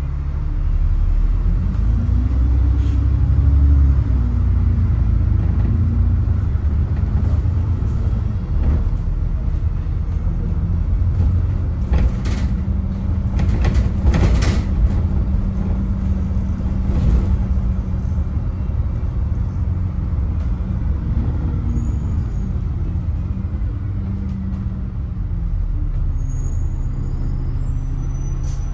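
Double-decker bus running, heard from the upper deck: a steady low engine rumble with a whine that rises and falls twice as the bus speeds up and slows. A few short bursts of noise come about halfway through.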